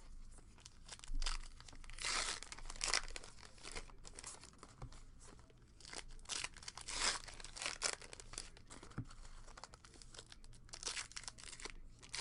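Trading card pack wrappers being torn open and crinkled, with irregular bursts of rustling as packs are handled.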